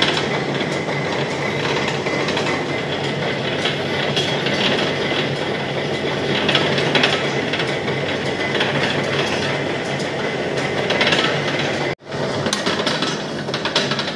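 Manual lathe running, a steady mechanical gear noise with light rattling clicks. It cuts out for a moment near the end, then carries on.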